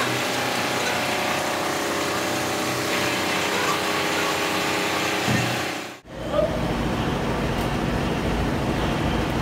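Steady machine hum with several held tones, and a dull knock about five seconds in. About six seconds in the sound cuts out for an instant and gives way to a deeper, rougher rumble.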